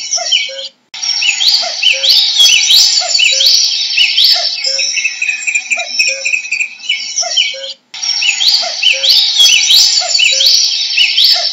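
Common cuckoo giving its repeated two-note 'cuck-oo' call, the second note lower, over a loud chorus of other songbirds with quick rising whistles. The sound cuts out briefly twice, just under a second in and about two-thirds of the way through.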